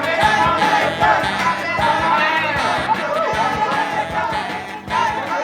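A 1983 studio recording by a German rock band: singing over a band with a steady drum beat.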